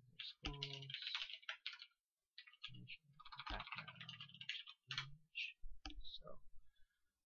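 Typing on a computer keyboard: quick runs of key clicks with a short pause about two seconds in, then a few single clicks.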